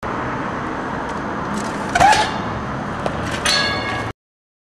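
A steady hiss of roadside traffic, with a sharp knock about two seconds in and a smaller one a second later as a trials bike hops and lands on a low wall, then a brief high squeal near the end. The sound cuts off suddenly.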